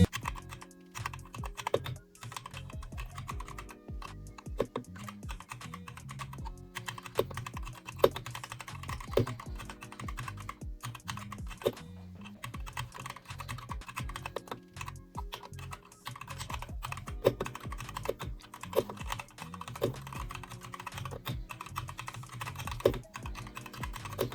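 Typing on a compact 61-key mechanical keyboard with red (linear) switches: a steady run of irregular key clacks.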